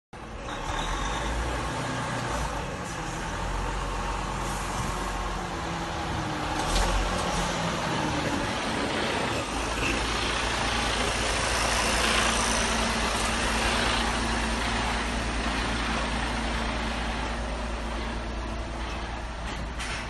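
Semi-truck's diesel engine running as the tractor-trailer rolls slowly past, with tyre and road noise. The engine sound turns into a steadier low drone about halfway through.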